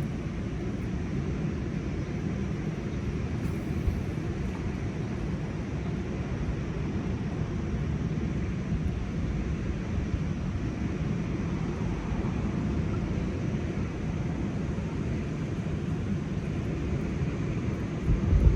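Steady low rumbling outdoor noise, with a loud low thump at the very end.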